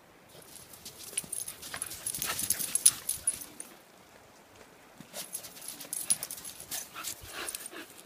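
An English bull terrier puppy and a Boston terrier playing in snow make dog noises and scuffling sounds. They come in two bouts of about three seconds each, the first just after the start and the second about five seconds in.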